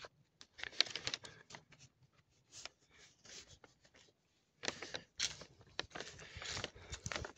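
Footsteps crunching on dry leaf litter along a dirt forest path, in irregular crackly bursts, with a quieter stretch of about two seconds in the middle.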